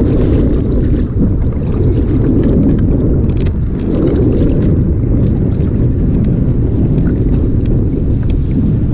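Wind buffeting the microphone: a loud, steady rumble. Faint light water splashes against the kayak tick through it.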